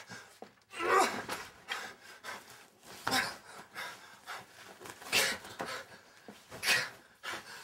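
A man's heavy panting and strained, gasping grunts while wrestling, with four loud bursts roughly two seconds apart and quieter breaths between.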